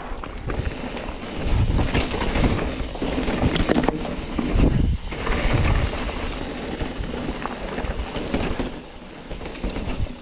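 Mountain bike ridden along a dirt trail, with wind buffeting the microphone in uneven low gusts and rolling trail noise. There are a few short knocks.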